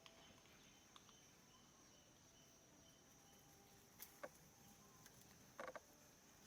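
Faint outdoor ambience: insects keep up a steady high-pitched drone. A few soft clicks come about four seconds in, and a brief burst of chirps comes near the end.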